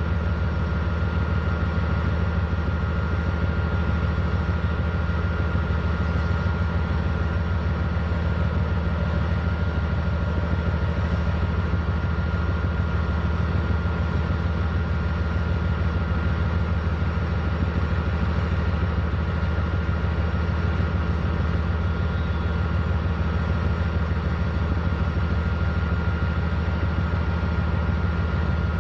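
Norfolk Southern diesel-electric locomotives' engines running steadily at low speed as they start the train moving: a constant low drone with a thin steady whine above it.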